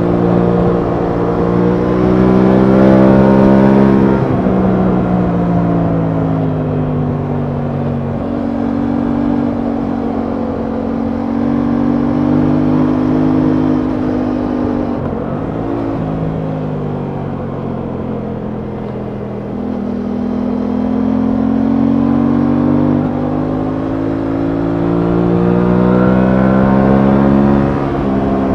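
Aprilia Tuono 660's parallel-twin engine under way, its pitch rising and falling with the throttle: it climbs in the first few seconds, eases down through the middle, climbs again in the last third and drops sharply near the end. Low wind rumble on the microphone runs beneath it.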